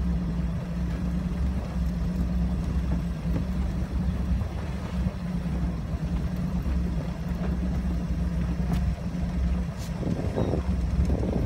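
Motorboat engine running steadily, a low even hum.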